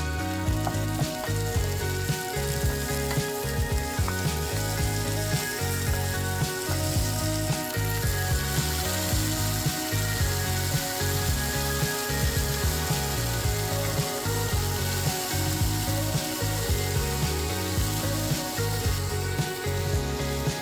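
Upbeat background music with a steady beat over the hiss of fish deep-frying in hot oil.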